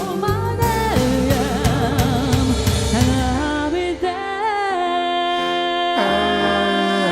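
A song sung by a lead vocal with backing harmonies over piano and a backing track. The first few seconds carry a beat under moving vocal lines; from about four seconds in, the voices hold long notes together.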